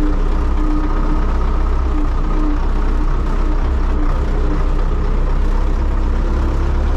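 Belarus MTZ-82 tractor's four-cylinder diesel engine running steadily while the tractor is driven, heard from inside the cab.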